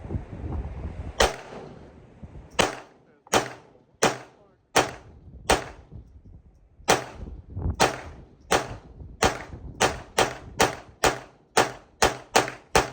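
Gunshots from a Smith & Wesson gun fired at the range: single shots start about a second in, at first a little under a second apart. They come faster toward the end, about two a second, about eighteen shots in all.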